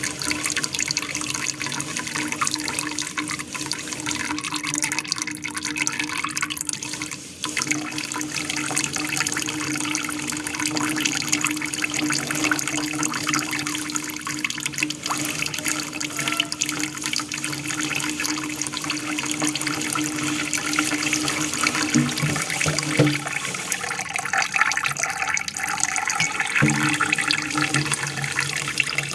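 Water from an aquarium waterfall splashing and trickling steadily under a constant low hum, with a few brief knocks near the end.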